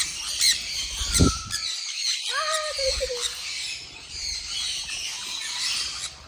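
Many aviary birds chirping and squawking together, with a clear falling call about two and a half seconds in and a brief low thump about a second in.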